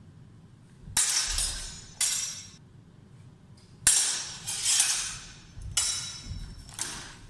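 Steel longsword blades clashing in sparring: about six sharp metallic strikes in quick exchanges, each ringing briefly before fading.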